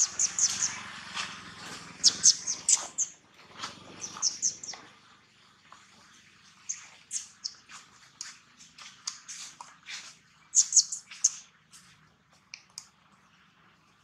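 Short high-pitched animal chirps in quick clusters of three or four, repeating on and off, with a low rumble underneath in the first few seconds.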